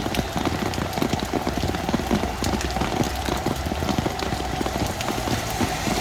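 Heavy rain falling steadily, with a dense, uneven patter of drops striking a hard surface.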